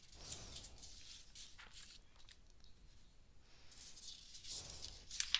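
Faint rustle and slide of paper as picture-book pages are turned by hand, once near the start and again near the end, with a small tap just before it ends.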